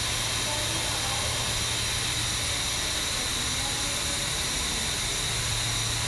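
Steady industrial noise of steam distillation equipment running: a constant hiss over a low, even hum, unchanging throughout.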